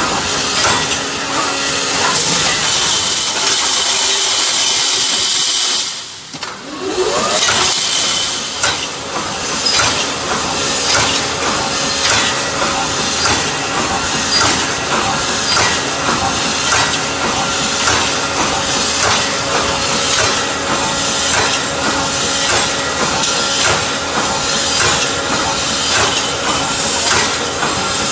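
Automatic wire mesh panel welding machine running: a continuous rapid clatter of the welding and wire-feeding mechanism over a steady hum, with a loud hiss from about two to six seconds in.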